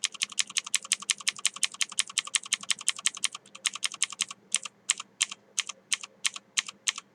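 Rapid, evenly spaced clicking at a computer, about ten clicks a second, slowing to more widely spaced clicks about halfway through.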